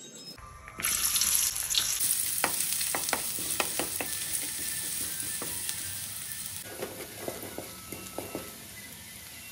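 Sliced red onion and garlic frying in hot oil in a wok. The sizzle starts suddenly about a second in, and a wooden spatula stirs and scrapes against the pan with scattered clicks and taps. The sizzle eases a little after about six seconds.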